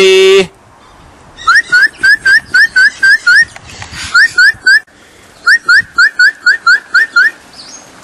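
A parrot calling: runs of short, sharp, rising whistled chirps, about five a second, broken by brief pauses. A man's shouted call ends at the very start.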